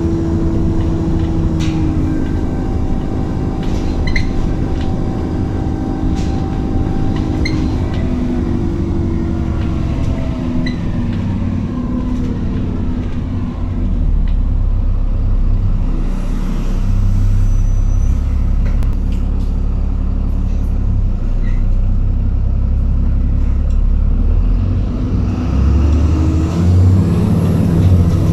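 Cabin sound of an Alexander Dennis Enviro400 double-decker bus on the move: engine and drivetrain running with a heavy low rumble. The engine note falls through the first half and rises again near the end as the bus picks up speed, with light rattles and clicks from the body and fittings.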